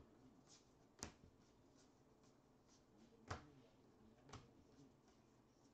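Near silence with three faint, sharp clicks, about a second in, just past three seconds and just past four, from 2020 Bowman baseball trading cards being flipped through a stack held in the hand.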